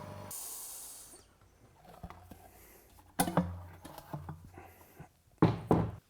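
A short hiss of air near the start, then scattered knocks and clunks of workshop equipment being handled, the loudest a pair of clunks near the end.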